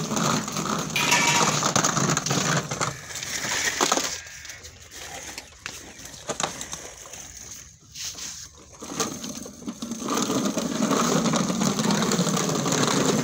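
Hard plastic wheels of a children's ride-on swing car rolling and scraping over stone paving. The noise stops about four seconds in, leaving a few light knocks, and the rolling starts again near the end.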